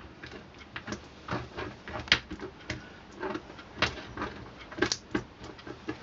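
Irregular light taps and scrapes of a stirring stick mixing two-part epoxy resin in a small tray.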